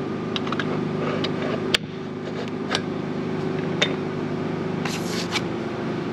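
Hands handling the miter lock and fence of an Evolution S380CPS metal-cutting chop saw: a few sharp clicks and scrapes of plastic and metal parts, with a short rustling burst about five seconds in. A steady low hum runs underneath.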